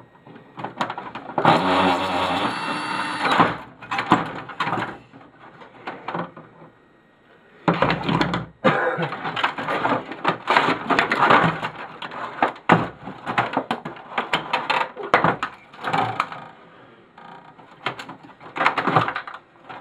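Plastic printer housing and parts being pried, scraped and rattled by hand and with tools while the printer is taken apart, in irregular clatters and knocks with a longer stretch of scraping early on and a sharp click around the middle.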